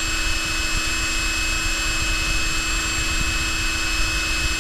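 Ingco 1,350Nm 20V brushless cordless impact wrench running free with no load on its high setting, spinning its socket at about 1,600 RPM: a steady whine with no hammering.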